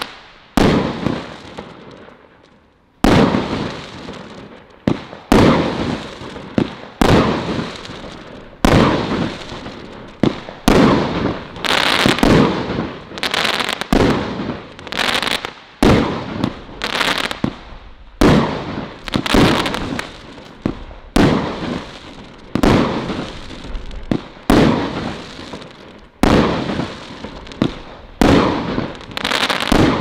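Celtic 'Colour Crackles' firework firing shot after shot, about one a second. Each shot is a sharp bang of the burst followed by the crackle stars fizzing and popping as they die away. The shots begin after a lull of a few seconds at the start.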